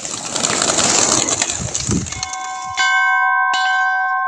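Pigeons' wings flapping as the flock takes off. Then a large hanging temple bell is struck twice by its clapper, less than a second apart, and rings on with several steady tones.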